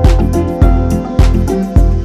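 Background music with a steady beat, a strong low thump about every 0.6 seconds.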